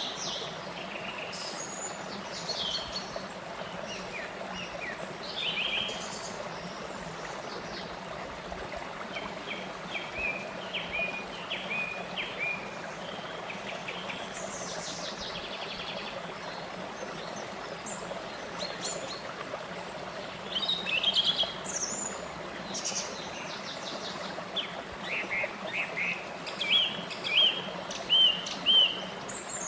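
Small rocky stream flowing steadily over low cascades, with songbirds chirping and trilling over the water. The birdsong comes in short phrases throughout and grows louder and busier in the last third.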